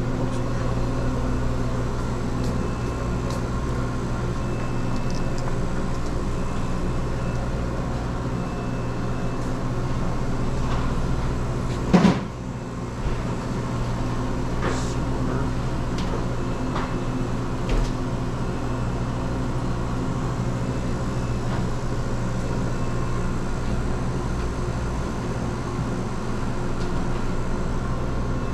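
Steady low hum of refrigeration machinery, with a sharp knock about twelve seconds in and two fainter clicks after it.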